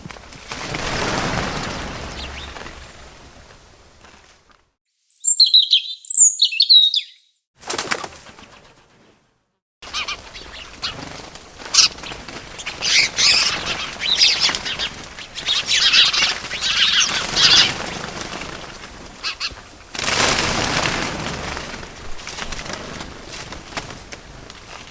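Small birds chirping, with whooshes of wing flapping near the start and again about 20 seconds in. A few clear chirps stand alone over dead silence about five seconds in, and the sound cuts out completely for a moment before dense chirping resumes.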